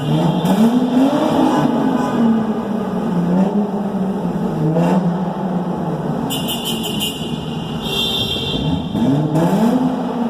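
Audi 80 Cabriolet engine revving through a loud straight-piped exhaust with glass-pack and cherry-bomb mufflers, its pitch rising and falling several times, inside a road tunnel.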